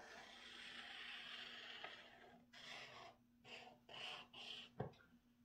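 Faint scratching of a pen drawing on paper: one long stroke, then several short quick strokes, with a light tap near the end.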